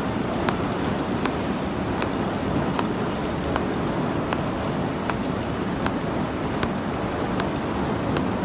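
SC200 cold welder (a micro pulse TIG/spot welder) firing repeated spot-weld pulses on 0.49 mm black iron sheet: a sharp tick about every three quarters of a second, over a steady low rushing noise.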